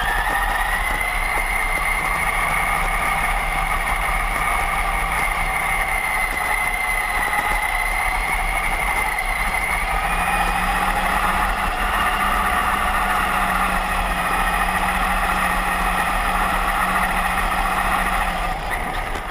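Traxxas Summit 4x4 RC truck's electric motor and geared drivetrain whining at a steady high pitch as it drives at speed, the pitch shifting slightly about halfway through.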